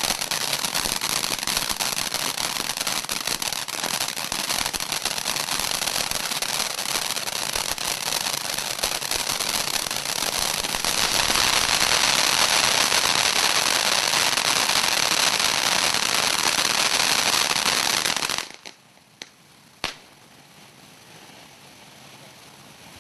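Fantasyland Fountain consumer ground fountain firework spraying, with a dense, loud crackling hiss that grows louder past the middle. It cuts off suddenly about three-quarters of the way through, leaving a low hiss and a couple of faint pops.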